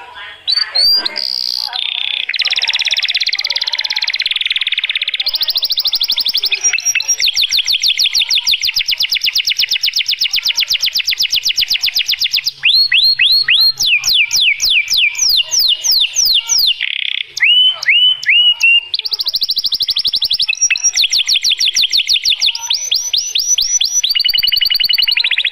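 White domestic canary singing its courtship song without a break, long runs of very fast repeated trilled notes. A little past the middle it gives a few short runs of quick, downward-sweeping whistled notes, then goes back to fast trills.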